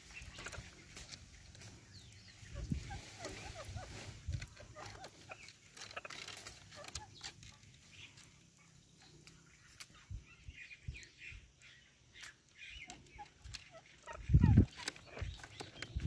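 Alexandrine and Indian ringneck parakeets making soft clucking chatter, with scattered clicks and taps. There are low thumps about three to four seconds in and a loud low thump near the end.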